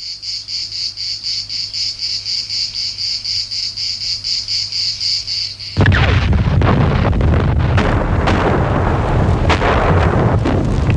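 Insects chirping in a steady high pulse, about four times a second. A little past halfway it cuts suddenly to a much louder din of battle, with gunfire and explosions.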